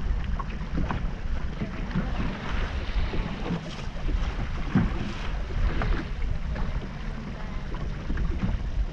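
Wind and water noise aboard an offshore sport-fishing boat: a steady low rumble with a haze of hiss, and scattered small knocks and clatter on deck.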